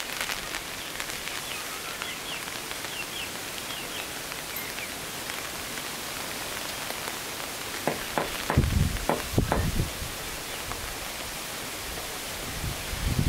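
A steady, even hiss, with a few faint high chirps in the first few seconds and a cluster of knocks and low thumps about eight to ten seconds in.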